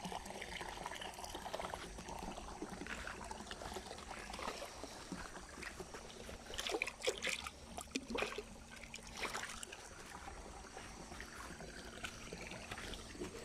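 Shallow rocky stream running, a steady trickling and pouring of water, with a few short sharp sounds about halfway through.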